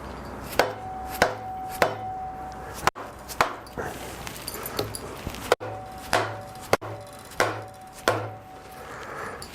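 About a dozen hammer blows, roughly one every two-thirds of a second, several leaving a short metallic ring, striking to break a cylinder head loose from a Chevy 350 small-block.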